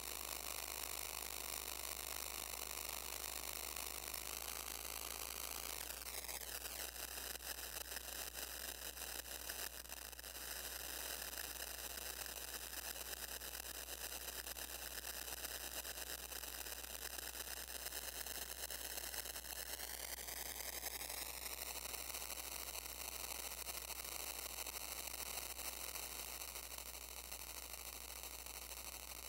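Modular synthesizer drone: a sustained buzzy tone with many overtones over a layer of hiss. Its pitch sweeps downward about six seconds in and glides slowly up again around twenty seconds in.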